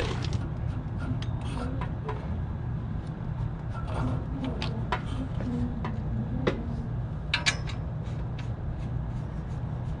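Refrigerant gauge manifold and hoses being handled and connected to an air conditioner's service ports: scattered light metallic clicks and clinks of the brass fittings, over a steady low hum.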